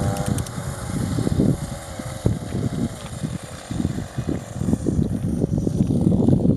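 Two-stroke chainsaw engine on a homemade moped coming down off high revs, its pitch falling over the first few seconds, then running at a rough, uneven low speed with irregular pops. Wind noise on the microphone.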